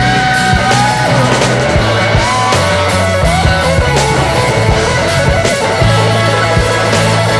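Rock music with guitar melody lines over sustained bass notes and drum hits, playing steadily and loudly.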